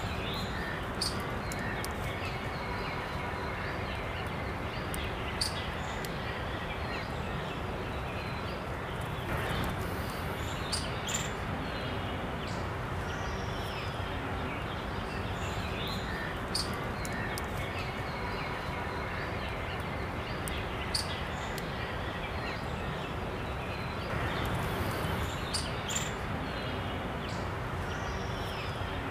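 Steady outdoor field ambience, an even background hiss with scattered faint high bird chirps and small clicks.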